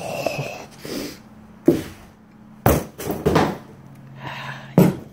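A steel ball peen hammer head, still in its plastic wrap, knocking against a wooden desk: three sharp knocks, the loudest near the end.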